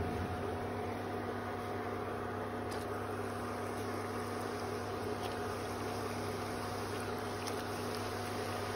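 Coated soya chaap deep-frying in hot oil, a steady sizzle, over the steady hum of an induction cooktop, with a few faint ticks.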